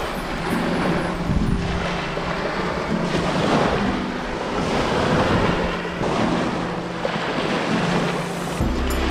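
Small waves washing up and draining back on the beach, swelling every second or two, with wind buffeting the microphone.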